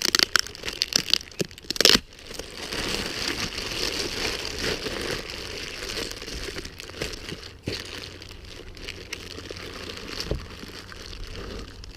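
Packaging of a tool kit being handled and unwrapped, crinkling, with several sharp crackles in the first two seconds, then steady rustling.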